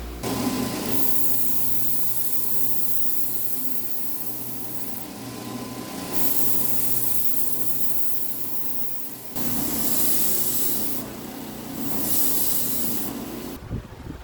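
Wooden knife handle being shaped with an abrasive tool, a steady hum under a sanding hiss that comes and goes several times as the handle is worked.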